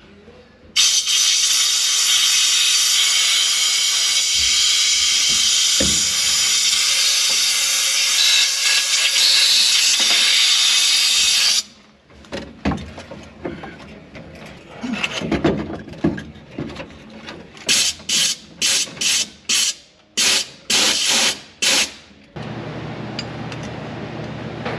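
An aerosol can of WD-40 sprayed in one long hiss of about ten seconds, then in a string of short bursts, loosening the engine's bolts. A steady low hum starts near the end.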